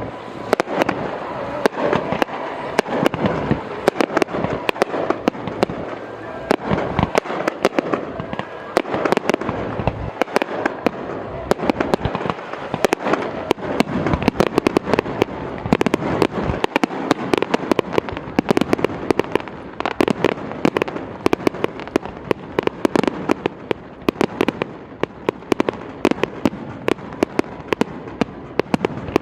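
Fireworks display: a dense, unbroken barrage of sharp bangs and crackling pops, many strokes a second.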